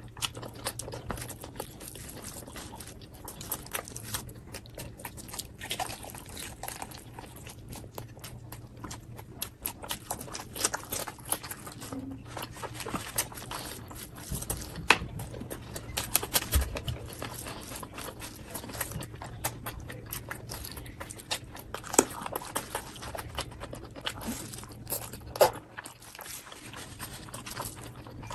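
A person chewing and biting food close to the microphone, with many short crunches, clicks and wet smacks, over a faint steady low hum.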